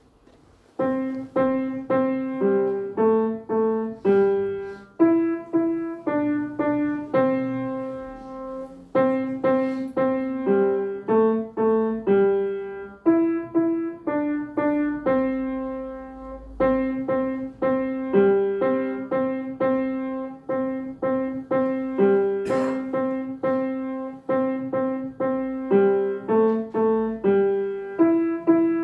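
Grand piano played by a six-year-old student: a simple melody of separate notes in the middle register at a steady pace, starting about a second in.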